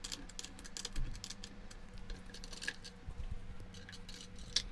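Light metallic clicks and taps of a small metal spanner working on the tricycle's front-fork nuts and bolts as they are tightened, with a sharper click about a second in and another near the end.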